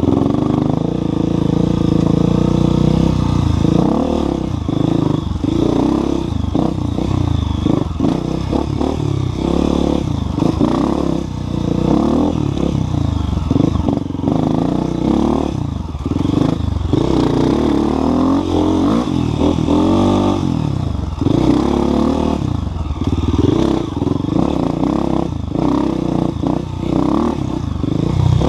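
Enduro dirt bike engine heard from the rider's helmet, revving up and down over and over as it is ridden along a rough trail, with clattering from the bike over the ground.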